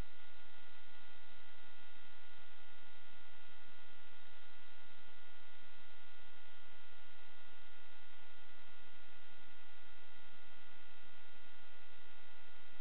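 Steady electronic hum and hiss with a few constant high whine tones and no change as the quad takes off. This is noise on the audio channel of an analog FPV video recording, not the micro quad's motors.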